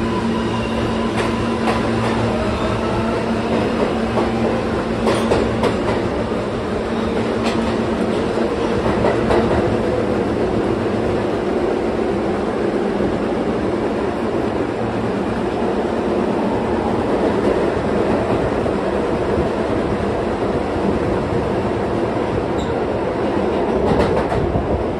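Bombardier R143 subway car in motion: the propulsion whine climbs in pitch over the first few seconds as the train picks up speed, over a steady rumble of wheels on the track with occasional sharp clicks. A steady hum from the car's HVAC is also heard early on.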